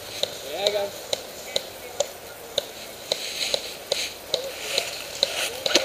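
Airsoft guns firing single shots: sharp clicks at irregular spacing, about two or three a second. Dry leaves crunch underfoot in the middle.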